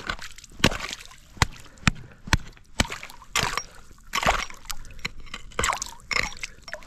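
An axe chopping through thin new river ice into the water: a sharp strike about every half to three-quarters of a second, each with splashing and sloshing of water and broken ice. From about three seconds in, the strikes turn wetter and splashier as the ice gives way.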